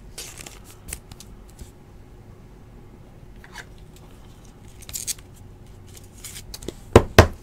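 Trading cards being handled: soft sliding and rustling with a few small clicks, a brief crisp rustle about five seconds in, and two sharp knocks close together near the end.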